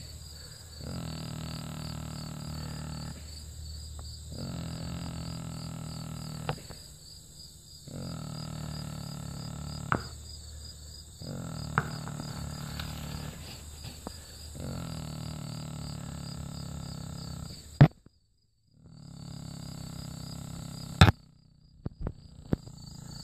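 A tranquilized deer snoring loudly in regular breaths, a long rasping snore roughly every three and a half seconds, with a steady high insect chirring underneath. Two sharp loud clicks break in during the second half.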